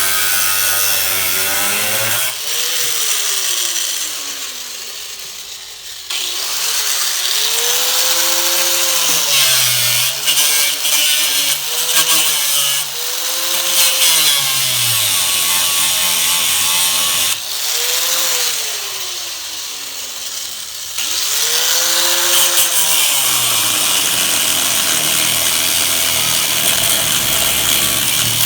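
Power cut-off tool cutting slits into a steel frame connector: the motor's pitch sags and recovers again and again as the wheel bites the metal, and twice it is let off and spins down with a falling whine before starting up again.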